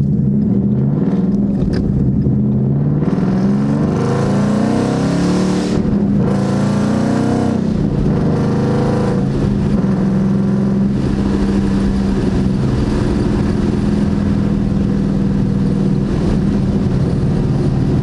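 2016 Ford Mustang GT's 5.0 V8 through a resonator-delete axle-back exhaust, heard from inside the cabin with the windows down. The revs climb through one gear, break at a shift about six seconds in, and climb again. The engine then settles into steady cruising.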